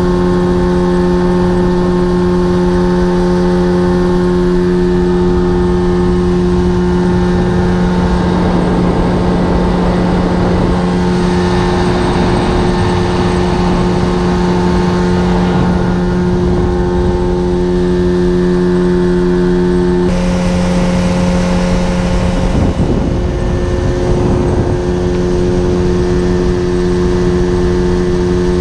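Mercury 30 hp two-stroke outboard motor running at a steady cruising speed, an even drone, briefly unsteady about 23 seconds in.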